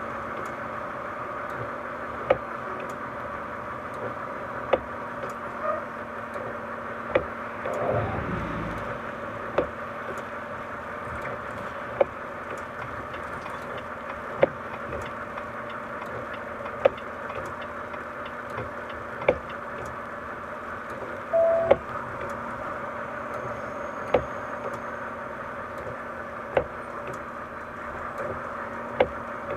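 Steady road and engine noise of a moving car, heard from inside the cabin: an even hum with a few held tones. Short sharp ticks come evenly, about once every two and a half seconds.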